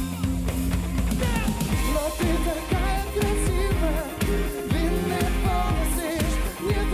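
A rock band playing live: electric bass, drums and electric guitar, with a male voice singing a wavering melody over a steady beat.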